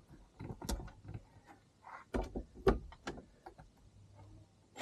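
Scattered sharp clicks and knocks from a tool and metal parts being handled while the bolts on a paramotor frame's legs are checked. They come irregularly, the loudest two about halfway through.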